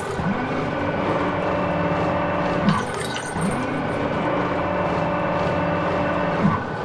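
A steady engine-like hum of several held tones that dips briefly in pitch and swells about every three and a half to four seconds, in an evenly repeating cycle.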